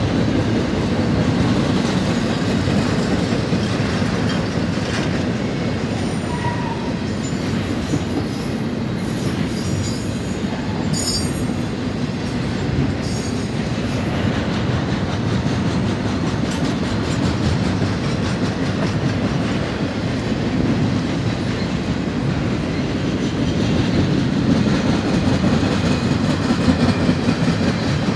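Double-stack container well cars of a long freight train rolling past, a steady rumble and clatter of steel wheels on the rails. Thin, high-pitched wheel squeals come in for a few seconds near the middle.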